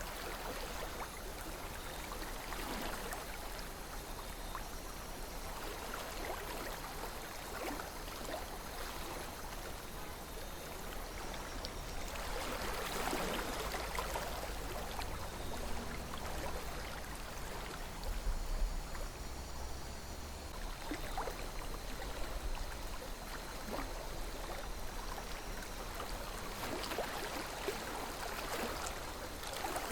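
River water flowing steadily with a continuous babbling splash that swells a little now and then, over a faint low rumble.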